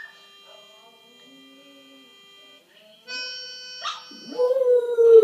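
Recorded harmonica music playing held chords, faint at first and louder after about three seconds. Near the end a German Spitz howls along to it in one long howl that falls in pitch, the loudest sound here.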